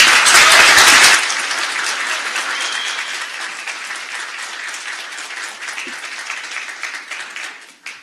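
Audience applause, loudest in the first second, then thinning and fading out over the next several seconds.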